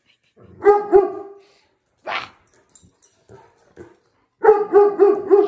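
A dog barking at a robot vacuum cleaner: two barks about a second in, then a quick run of four near the end.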